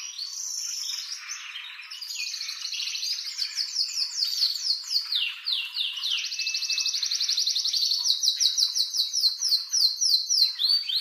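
Male domestic canary singing an excited breeding-season song: fast rolling trills of rapidly repeated notes at several pitches, some sliding downward. A long, even, high trill runs through the second half and grows louder toward the end.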